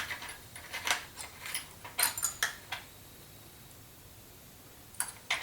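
Small steel drill bits clinking and rattling as they are picked out of a drill bit set and swapped for a smaller size. A run of quick clicks comes over the first few seconds, then a quieter stretch, then two more clicks near the end.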